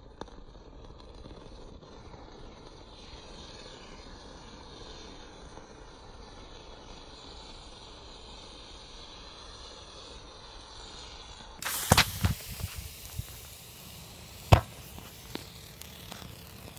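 Lithium metal burning with a crimson flame, fizzing quietly at first; about twelve seconds in come a quick cluster of sharp pops, then a single loud crack a couple of seconds later and a few smaller crackles.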